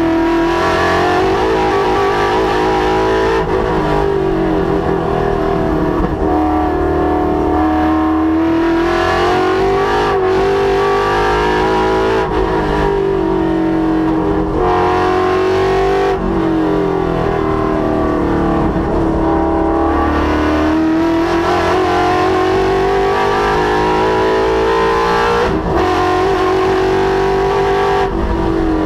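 Ford Mustang's Coyote 5.0 V8 at full throttle on a race track, its pitch climbing repeatedly under acceleration and dropping back for gear changes and corners.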